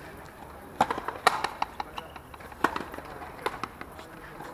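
Sharp, irregular knocks and taps on a frontenis court: a quick cluster about a second in, the loudest among them, then a few single ones later.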